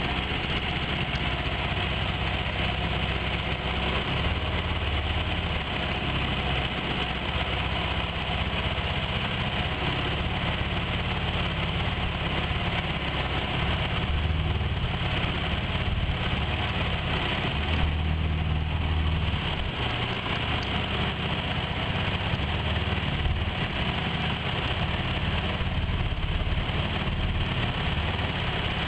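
Bawad mud-motor outboard engine running steadily.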